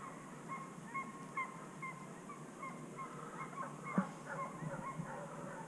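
Distant animal calls: short, repeated pitched notes at about two a second. A single sharp knock about four seconds in is the loudest sound.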